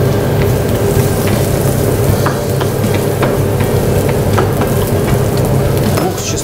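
Chopped onion and garlic sizzling in oil in a frying pan while a wooden spatula stirs and scrapes them, with scattered light clicks of the spatula on the pan over a steady low hum.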